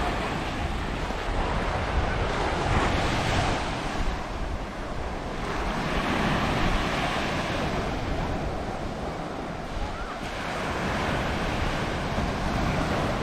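Surf breaking on a sandy shore, swelling and ebbing every few seconds as the waves come in. Wind buffets the microphone with a low rumble.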